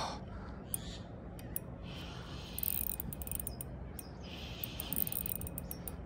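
Spinning reel being cranked to wind in line against a hooked fish: a faint, steady gear whirr with scattered small clicks.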